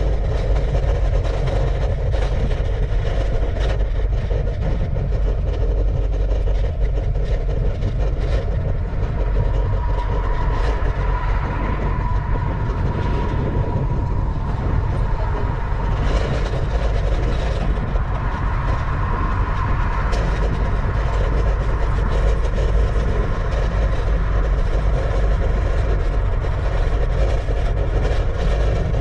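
Wind buffeting the microphone of a bicycle-mounted action camera while riding, a steady heavy rumble mixed with tyre and road noise. A faint high whine sits under it for several seconds in the middle.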